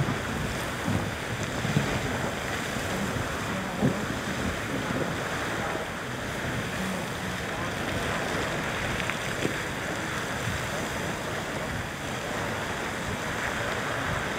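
Old Faithful geyser erupting: a steady rushing of steam and water.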